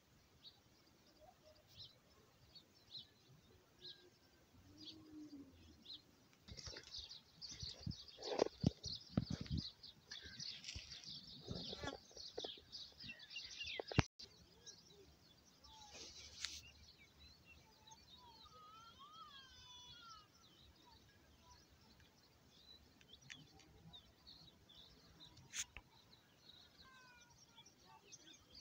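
Small birds chirping and calling, in short quick notes with a busier spell of calls a few seconds in and some warbling later; a single sharp click near the middle.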